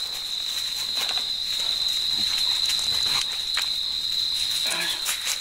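Crickets trilling in one steady, unbroken high-pitched tone, with a few soft clicks and scrapes of food being handled in a metal pan over the fire.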